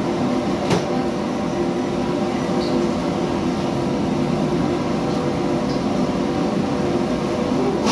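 Steady roar and hum of a commercial kitchen's extraction hood fan and lit gas wok burners, with one sharp knock about a second in.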